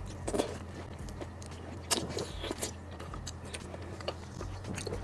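Close-up mouth sounds of someone eating raw soy-marinated red shrimp: wet sucking and biting on the shrimp, then chewing, with a few sharp smacks, the loudest about two seconds in.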